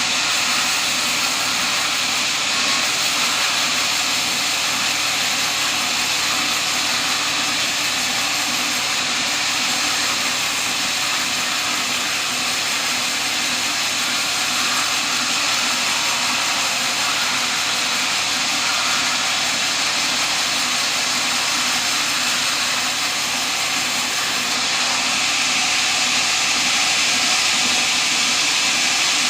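Sawmill running steadily: a loud, even rushing noise with a low hum beneath it.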